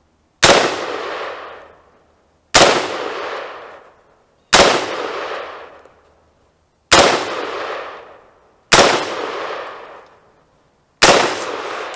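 Six single shots from a 20-inch AR-15 rifle fired at a steady pace, about two seconds apart. Each sharp crack trails off in an echo lasting about a second and a half.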